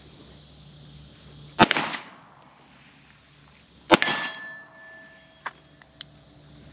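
Two pistol shots from a Springfield Armory 1911 DS Prodigy 9mm, about two and a half seconds apart, the second followed by a short metallic ringing. Two faint ticks near the end.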